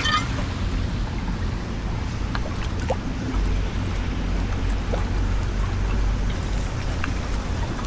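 Floodwater rushing steadily into a cleared street drain, with a constant low rumble and a few faint ticks of debris.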